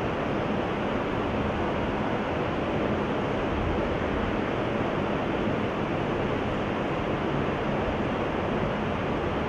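Steady, even rushing background noise with no speech or music, unchanging throughout.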